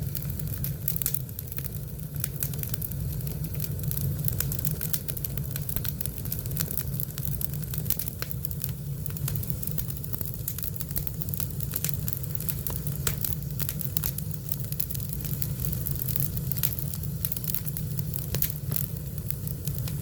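Wood campfire burning, with frequent irregular crackles and pops over a steady low rumble.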